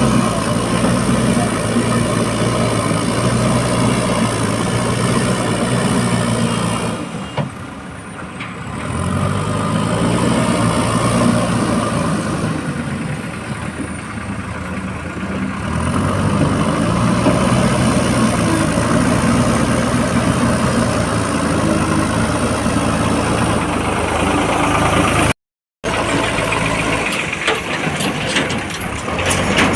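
Diesel engine of a JCB 4DX backhoe loader running under working load, its note sagging and picking up again twice as the machine works. A few sharp knocks come near the end.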